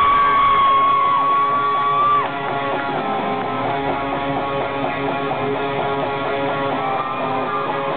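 Live rock band playing electric guitars at the start of a song: a long held high note that stops about two seconds in, then strummed guitar chords.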